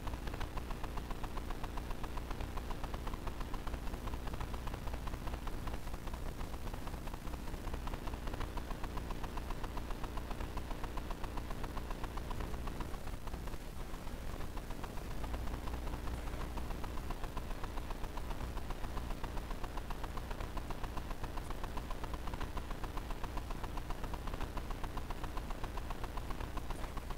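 Faint, steady low hum with a fast, even pulsing, machine-like in character.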